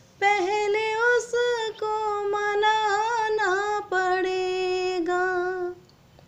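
A solo woman's voice singing a naat: one long melodic phrase of held, gently wavering notes with short breaks between them, ending shortly before the end.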